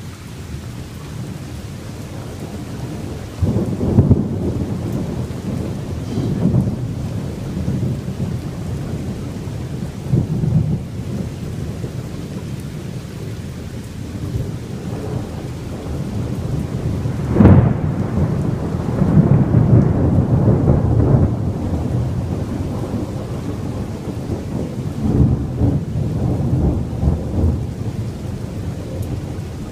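Thunder rumbling again and again over steady rain during a night thunderstorm. A sharp thunderclap a little past halfway is the loudest moment, and long rolling rumbles follow it.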